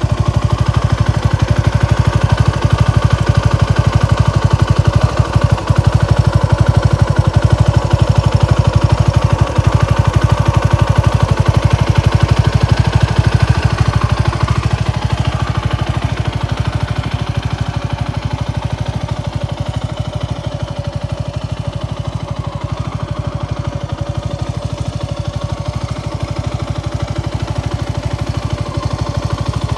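Suzuki Gixxer SF250's single-cylinder engine idling steadily through a Yoshimura GP-Magnum105 Cyclone full exhaust, with an even, pulsing exhaust note and no revving. It grows a little quieter about halfway through.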